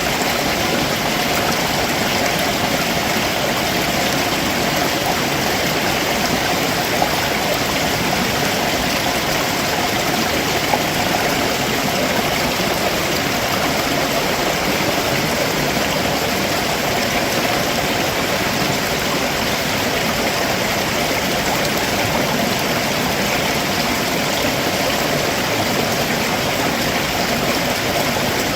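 Stream water rushing over rocks below a waterfall, a steady, unbroken wash of noise.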